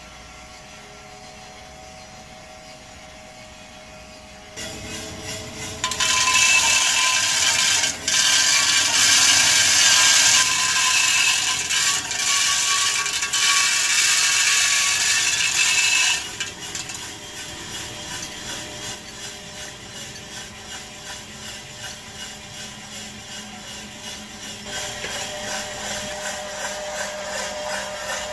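Homemade drum coffee roaster running with a steady low hum. About five seconds in, green coffee beans are poured into its steel hopper funnel and the preheated drum at about 230 °C, a loud rattling hiss for about ten seconds. After that the beans rattle rhythmically as they tumble in the rotating drum.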